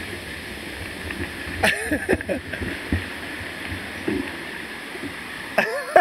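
Mountain bike rolling over a dirt and rock trail: a steady rumble of tyres with short knocks and rattles from bumps. A voice calls out briefly about two seconds in and again near the end.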